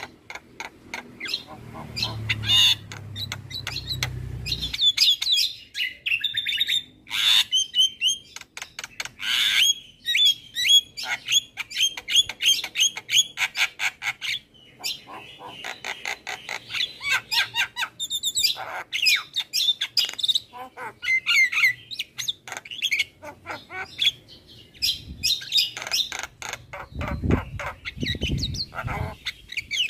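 Javan myna singing a fast, continuous run of chirps, whistled notes and harsh squawks. A low rumble runs under it for the first few seconds and again near the end.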